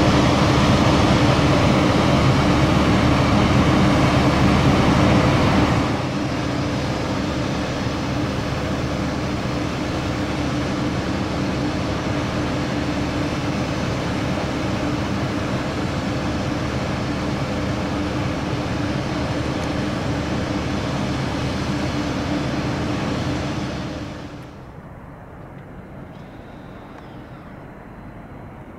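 Steady whine and rumble of aircraft running on an airport ramp. It drops a step in level about six seconds in, and falls to a quieter, windy background near the end.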